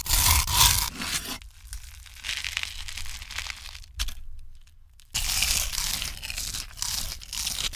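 Crisp crunching and crackling of crunchy food being broken up, in bursts: loudest in the first second and a half, then lighter crackles, a short near-silent gap about four seconds in, and more crunching after it.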